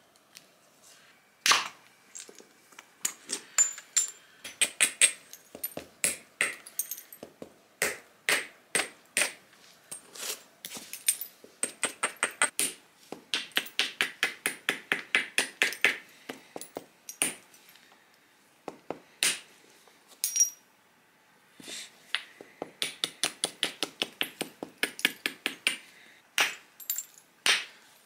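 Percussion flaking of a stone disc biface with a billet: runs of quick, light taps against the stone's edge, broken by a few single harder strikes that knock off flakes.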